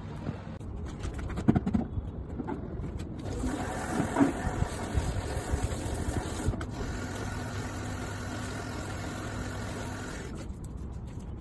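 A small motor running with a steady whine, starting about three seconds in and stopping shortly before the end, after some knocks and clatter.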